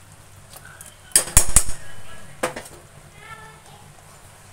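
Ladle knocking against the rim of an aluminium pressure cooker: a quick cluster of sharp clatters about a second in, then one more knock about a second later.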